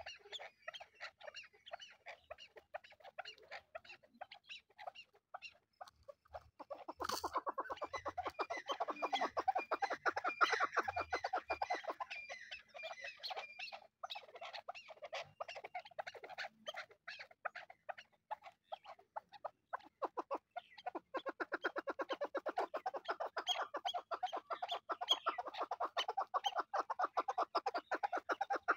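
Chukar partridges calling, a long rapid string of repeated chuck notes that grows louder about a quarter of the way in, eases off in the middle and swells again for the last third.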